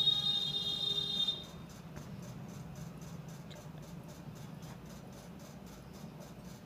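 Pet cat giving one long, high-pitched, squeaky mew held nearly level in pitch, fading out about a second and a half in; a faint low steady hum remains after it.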